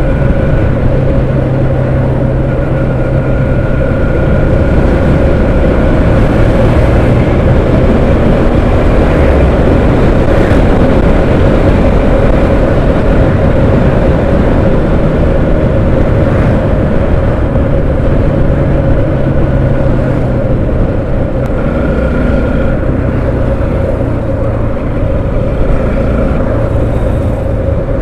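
Motorcycle being ridden at about 50–60 km/h: its engine runs steadily under a loud rush of riding noise on the helmet microphone. The engine note shifts a few times as the throttle changes.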